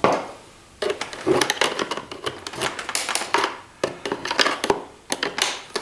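Hard plastic parts inside a CPAP machine's housing clicking, knocking and scraping as they are pried at by hand and with a metal tool, in several uneven bursts of clatter with short pauses between.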